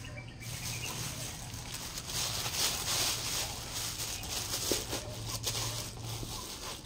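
Rustling and crinkling as crumpled stuffing is pulled out of a leather sling bag and the bag is handled, with a faint steady low hum underneath that stops near the end.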